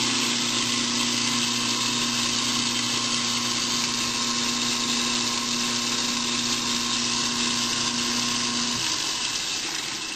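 Waste King SS3300 garbage disposer running, with no splash guard, as tap water pours into its drain: a steady motor hum under a loud rushing hiss. About nine seconds in the motor hum stops suddenly and the running water carries on alone, a little quieter.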